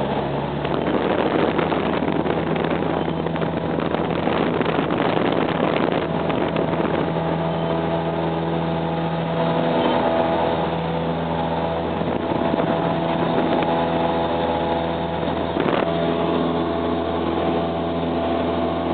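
Single-engine propeller airplane's engine heard from inside the cockpit, rising in pitch at the start as power comes up for the touch-and-go, then held steady at takeoff power through the ground roll and climb-out. Runway rumble mixes in over the first few seconds.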